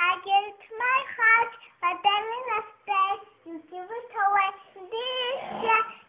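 A child's high-pitched singing voice in a song, sung in short melodic phrases.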